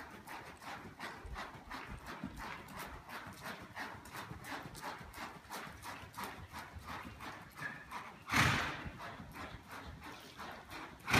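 Horse trotting on the dirt footing of an indoor arena: a steady rhythm of hoofbeats, roughly four a second. About eight seconds in there is a brief, louder rush of noise.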